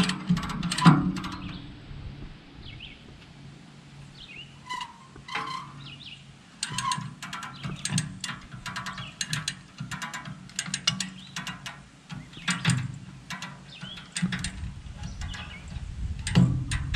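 Hand come-along ratchet clicking in quick runs as its handle is worked, pulling woven wire fence tight. A few short bird chirps come through in the middle.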